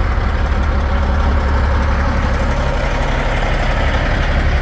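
An engine running with a steady low rumble that does not change.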